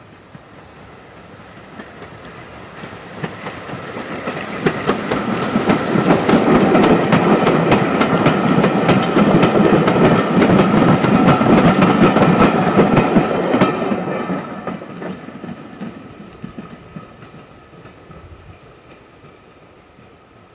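A steam tank engine and its vintage carriages passing close by. The rumble builds, peaks with a rapid clickety-clack of wheels over rail joints, then fades away as the train recedes.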